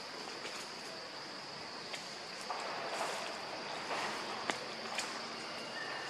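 Steady high-pitched insect drone over a hiss, with a few light clicks and short rustles in the second half.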